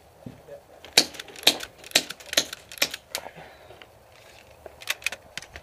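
Airsoft guns firing single shots as sharp snaps: about six in quick succession between one and three seconds in, then a few more near the end.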